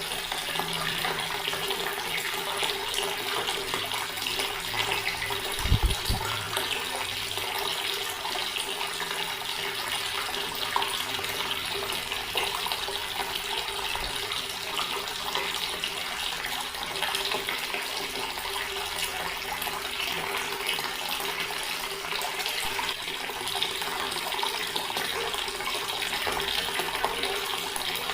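Water from a tap pouring steadily into a stone basin, an even splashing rush. There is a brief low thump about six seconds in.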